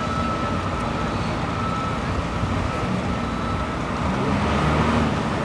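Heavy engines of a police armoured car and a water cannon truck running as they roll slowly forward, a steady low engine hum that grows a little louder about four seconds in.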